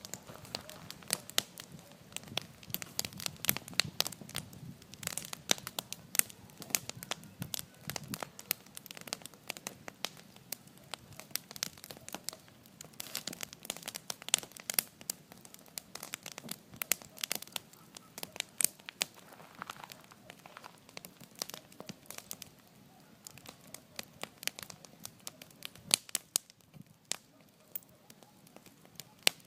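Wood bonfire crackling, with dense irregular sharp pops that grow sparser near the end.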